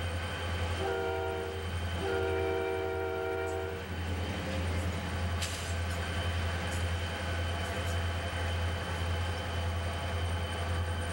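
Burlington Northern diesel locomotive's multi-chime air horn, a short blast about a second in and then a long one, the end of a grade-crossing signal, over the steady rumble of the moving train. From about four seconds in only the rumble goes on.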